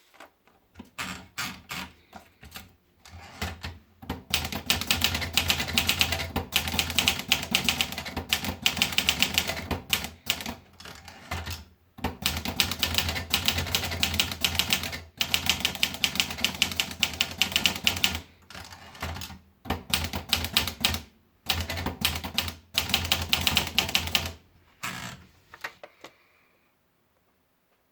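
Olivetti Lettera DL manual portable typewriter being typed on, in quick runs of key strikes broken by short pauses, stopping near the end.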